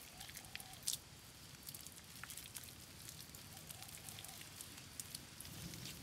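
Wet mud being pressed and smoothed by hand into a stove wall: faint scattered wet clicks and pats, with one sharper click about a second in.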